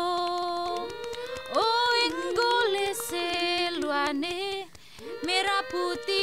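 Women's voices singing in overlapping parts, with long held notes that slide up and down between pitches.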